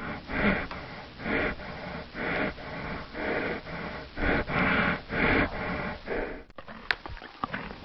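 A horse making a rhythmic series of about eight noisy, breathy bursts, roughly one a second, that stop about six and a half seconds in and give way to a few light taps.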